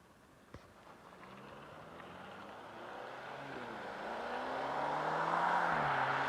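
Mercedes-Benz E-Class coupe approaching, its engine note and tyre noise growing steadily louder, with the pitch of the engine bending up and then down near the end.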